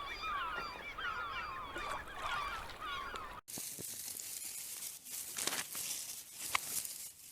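A flock of geese honking, many short calls overlapping. It cuts off suddenly about three and a half seconds in, and a steady hiss with scattered clicks follows.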